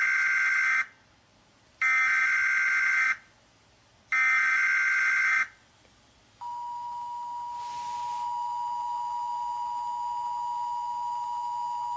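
Emergency Alert System broadcast tones: three bursts of SAME header data, each a little over a second long and about a second apart, then, about six seconds in, the steady two-note attention signal.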